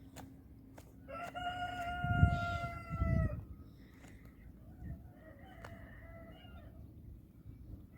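A long, drawn-out animal call: one steady pitched cry of about two seconds, then a fainter, shorter one a couple of seconds later. Two low thumps sound during the first cry.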